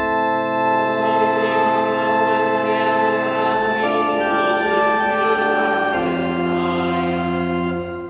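Organ playing a short phrase of sustained chords that starts suddenly, changes chord twice and fades near the end.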